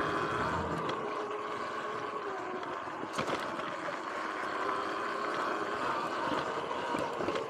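Sur-Ron X electric dirt bike riding along a dirt trail: a steady electric-motor whine over tyre and wind noise, with a knock from a bump about three seconds in.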